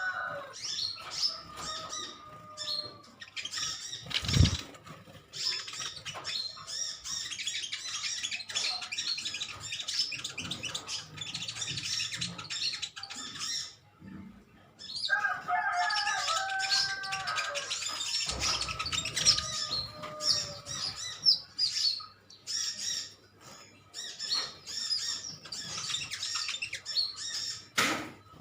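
A group of metallic-green sunbirds chattering with rapid, high-pitched chips as they squabble, with wing flutters among them. A lower, drawn-out call from another bird comes about halfway through, and a short thump about four seconds in.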